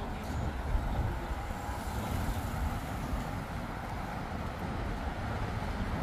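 Road traffic on a city street: a steady mix of engine and tyre noise from passing cars.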